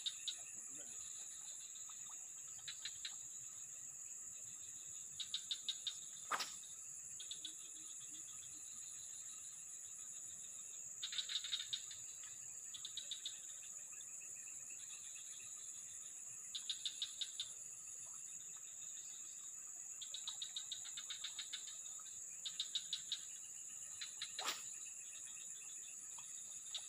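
Insects: a steady high-pitched drone, with short bursts of rapid chirping every few seconds. Two sharp clicks stand out, one about six seconds in and one near the end.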